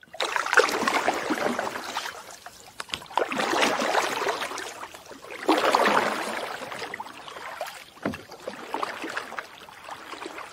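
Water sound effects: three surges of splashing, rushing water, each lasting about two seconds and dying away, then a low thump about eight seconds in and fainter water sound after it.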